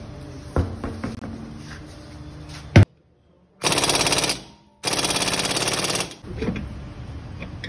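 Pneumatic impact wrench hammering on a Tata Nexon's rear hub nut in two rattling bursts of about a second each, loosening the nut to remove a worn wheel bearing. A single sharp knock comes just before the bursts.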